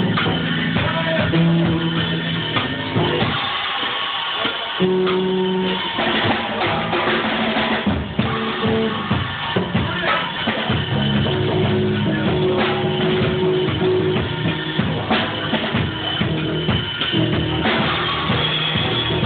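Live drum kit playing a drum-and-bass beat, dense kick, snare and cymbal hits, over a low bass line of held notes.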